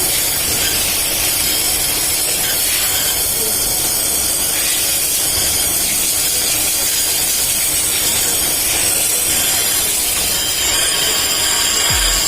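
Steady abrasive hiss of emery paper being pressed against a rusted brake disc spinning under engine power, grinding the rust off the disc face.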